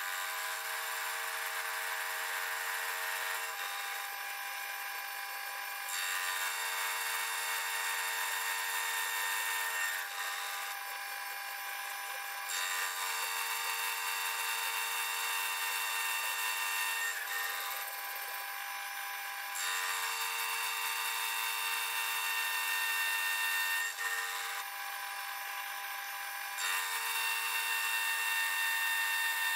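Milling machine spindle running with a steady whine while a dovetail cutter cuts a dovetail into a metal block. The cutting noise grows louder and drops back in stretches of a few seconds as the cutter goes in and out of the cut.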